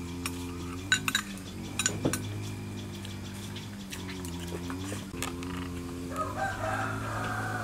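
Metal spoon clinking against a ceramic plate and bowl while eating, a few sharp clinks about one to two seconds in, over a steady low hum.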